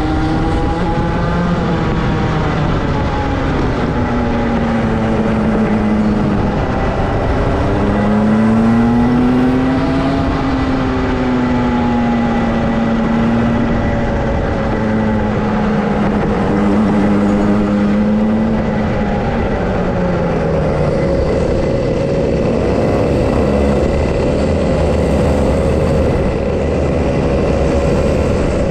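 Rotax two-stroke kart engine racing, its note rising and falling again and again as the driver comes on and off the throttle through corners, then holding a steadier note from about two-thirds of the way in.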